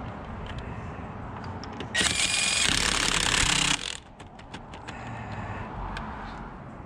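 Impact wrench running a car's wheel lug nut in one burst of just under two seconds, about two seconds in, followed by a few light clicks.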